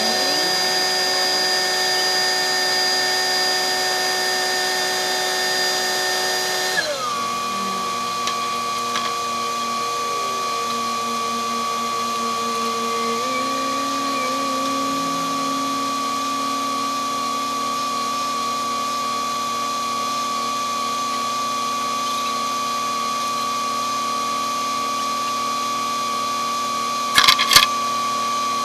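Engine of road-paving machinery running steadily with a high whine; its pitch drops about seven seconds in and then holds. A few short loud bursts near the end.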